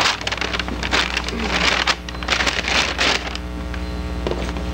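Irregular rustling and shuffling as people get up and move about, thick for the first three seconds and then thinning, over a steady electrical hum on the recording.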